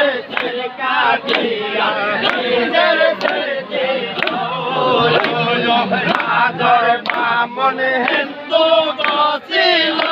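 A crowd of men chanting zikr together in loud unison, clapping their hands about once a second to the rhythm.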